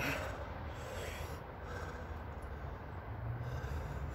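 A man breathing hard through his nose and mouth while recovering from the burn of a Carolina Reaper pepper, over a faint steady low hum.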